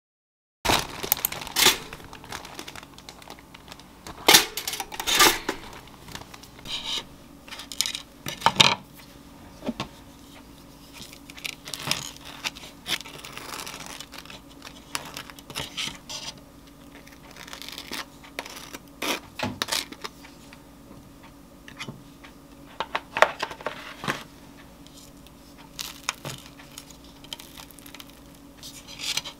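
A table knife scraping spreads of strawberry jam and then Greek yogurt across crusty toasted bread on a ceramic plate, in irregular scratchy strokes with scattered clinks, over a faint steady hum.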